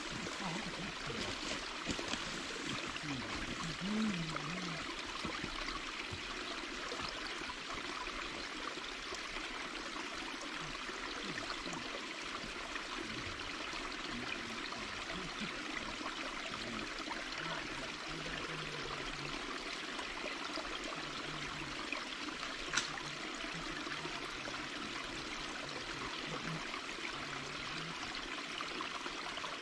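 Small creek water trickling steadily past a beaver dam of sticks, an even rushing noise throughout. One brief sharp click sounds about two-thirds of the way through.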